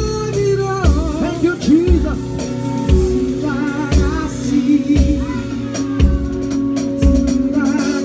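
Live worship music: a drum kit played with sticks, a low kick-drum stroke about once a second with cymbal and hi-hat strokes between, under a singing voice and sustained band instruments.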